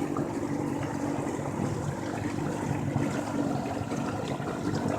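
Boat motor running at a steady speed, with water rushing past the hull.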